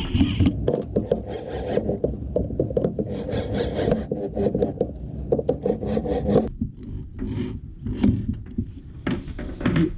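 Wood being rubbed and abraded by hand in a run of rough, irregular strokes, as in finishing the surface of a freshly built wooden stool.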